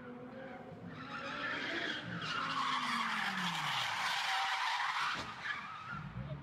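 Audi R8 supercar's engine note falling over the first two seconds, then its tyres squealing loudly for about three seconds as the car slides sideways. The squeal stops abruptly about five seconds in and the engine is heard again.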